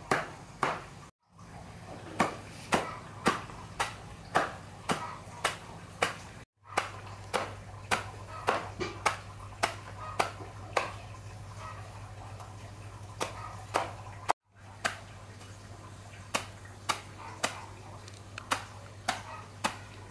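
Machete chopping leafy green stems against a wooden board, in steady strokes about two a second, in runs with short pauses between them.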